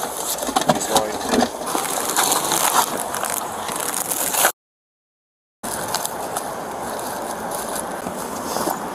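Rustling, crinkling and clicking of gloved hands rummaging through a car trunk and bags close to a body-worn camera. The sound cuts out completely for about a second just past the middle.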